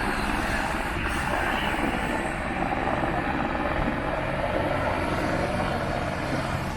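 Steady engine noise with a fast, low pulsing underneath.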